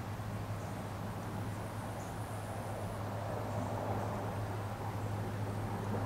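Evening outdoor ambience: insects chirring faintly and high over a steady low hum of distant traffic, with distant engine noise growing louder near the end.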